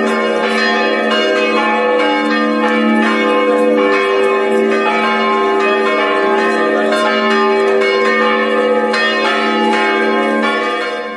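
Bells of a Serbian Orthodox church pealing, several bells struck in quick, overlapping succession so that their ringing tones blend into one continuous, loud peal. It dies away near the end.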